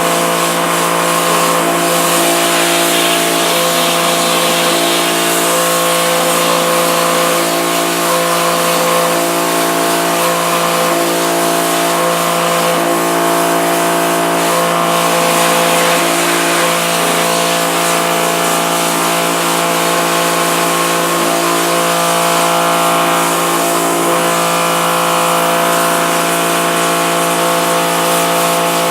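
Pressure washer running steadily, a constant pitched motor-and-pump hum under the hiss of its water jet, blasting emulsion out of a screen-printing screen.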